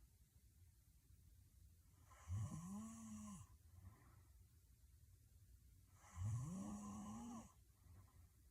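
A sleeping woman snoring heavily: two snores about four seconds apart. Each is a pitched buzz that rises and then falls, lasting just over a second.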